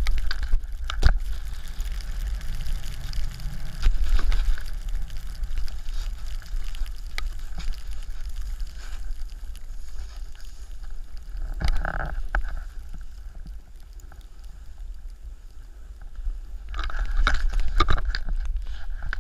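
Snowboard sliding and carving over snow, a steady scraping rush with low wind rumble on the camera microphone and a few short knocks. The scraping eases off in the middle and gets louder again near the end as the board turns through softer snow.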